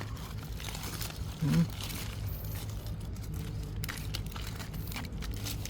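Faint rustling and crinkling of handling over a steady low hum, with a short vocal exclamation about a second and a half in.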